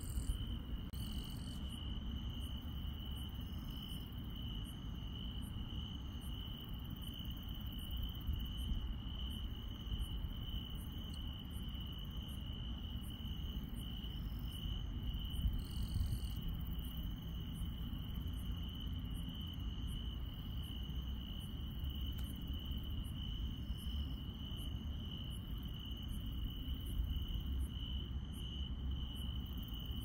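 Night grass insects, crickets, trilling without a break at one steady high pitch, with a faint regular ticking higher up and a low rumble underneath.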